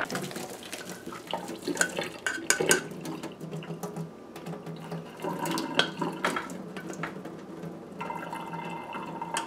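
Boiled rice and its cooking water poured out of a pot through a metal mesh strainer into a stainless steel sink: water splashing briefly at the start, then scattered metallic clinks and taps as the pot and strainer are handled over the sink.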